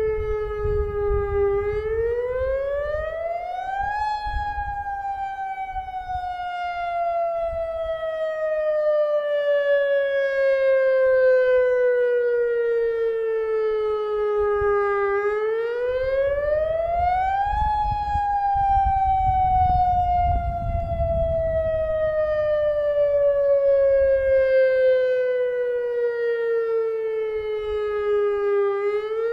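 Federal Signal outdoor lahar warning siren sounding its test signal. The pitch climbs quickly over about two seconds, then glides slowly down for about eleven seconds, and the cycle runs twice before starting to climb again at the end. A low rumble runs underneath.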